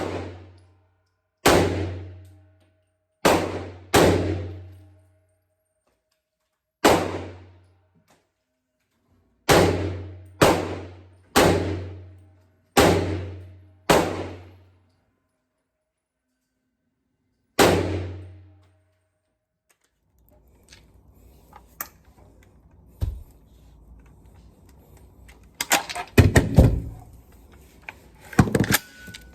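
Gunshots at a shooting range: about eleven single shots at uneven spacing, each fading over about a second. After that come handling clatter and a few more sharp bangs near the end.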